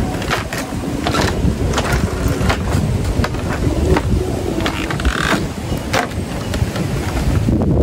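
Footsteps on a woven bamboo footbridge, the slats clacking and creaking in irregular knocks with each step, over a low rumble of wind on the microphone.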